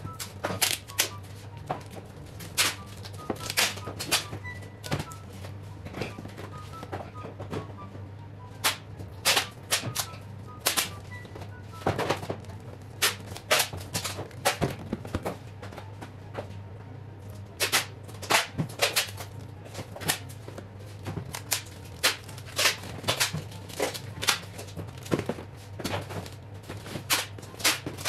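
Clear packing tape pulled from the roll and torn while cardboard face-mask boxes and plastic sanitizer bottles are handled and set down: an irregular run of sharp clicks, knocks and taps.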